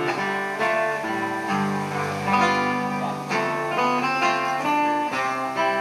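Acoustic guitar playing a gentle melody, plucked notes and held chords.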